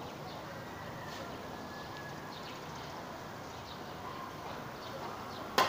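Quiet background, then near the end a single sharp click of a pool cue tip striking the cue ball.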